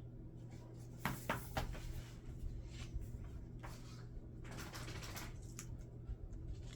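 Pages of a hardcover photo book being turned and handled: a few short paper rustles and light knocks, over a steady low hum.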